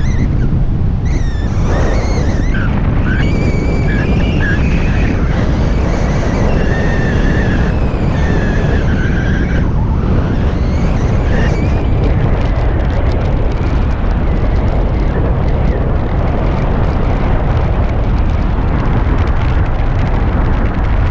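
Wind buffeting the microphone in flight, a heavy steady rumble. Over roughly the first ten seconds a high wavering tone comes and goes in short pieces.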